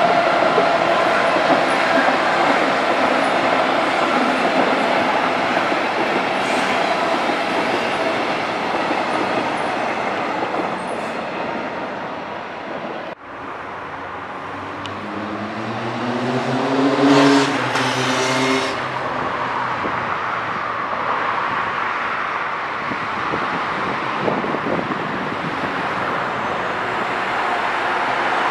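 Electric trains running past on the line. First a DB class 101 electric locomotive rolls by with a steady running noise and a whine. Then a second train passes, with a brief rising whine and a louder hiss about two-thirds of the way through.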